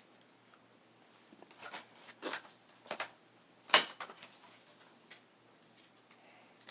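Items being handled: a few short rustles and knocks, the loudest one almost four seconds in.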